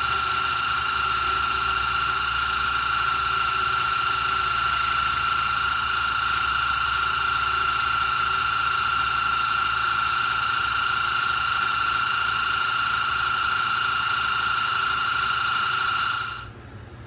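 Scroll saw running steadily with an even high-pitched whine while cutting interior detail in a small rosewood burl piece; it shuts off about sixteen seconds in.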